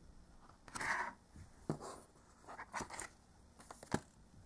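Paper booklet pages turning with a rustle about a second in, followed by a few light taps and clicks as the booklet and the next book are handled.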